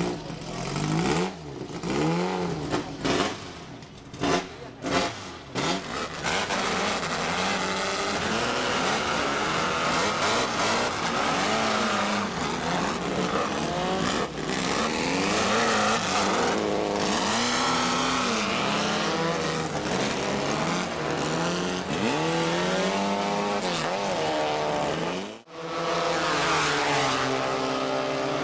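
Formula Nacional open-wheel race car engines revving, in short separate blips of rising and falling pitch for the first few seconds, then running continuously with the pitch rising and falling as the cars accelerate and lift. The sound drops out briefly near the end and comes back at a steadier pitch.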